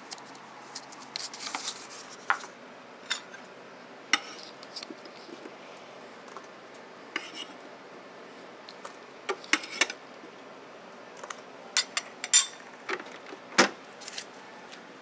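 Scattered clinks and clicks of buffet serving utensils and dishes as fruit is spooned onto a paper plate. The clicks are sharp and irregular, bunching together and growing louder in the second half.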